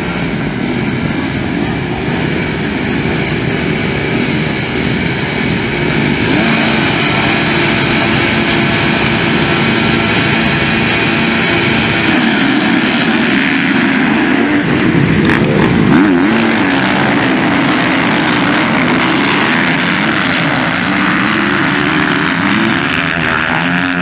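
A field of motocross bikes running together at the starting gate, many engines revving at once in a dense, continuous mechanical drone that gets louder from about six seconds in.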